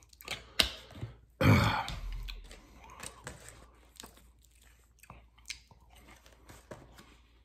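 A man eating close to the microphone: a couple of sharp clicks, then a loud burst about a second and a half in, followed by quieter chewing of a breakfast burrito with small wet clicks.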